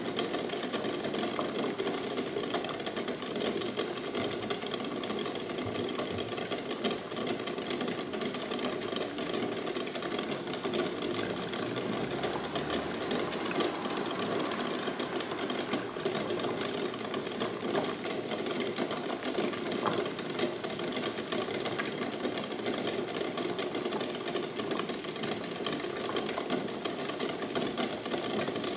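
Water at a rolling boil in a stainless steel pot, with several eggs jostling in it and knocking against each other and the pot in a steady, rapid rattle.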